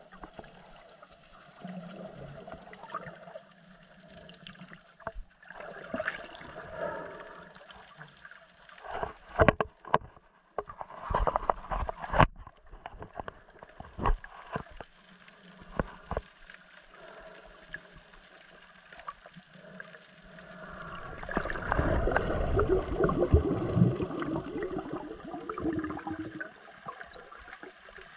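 Water sloshing and gurgling around a camera held underwater, with scattered sharp clicks and knocks around the middle and a louder rush of water a little after three quarters of the way through.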